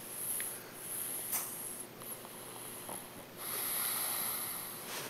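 A pet snoring in its sleep: a series of slow, breathy, hissing breaths, the longest about three and a half seconds in.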